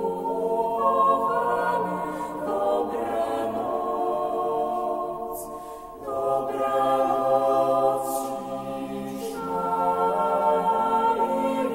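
Vocal ensemble singing in slow, long-held chords, with a short break between phrases about six seconds in.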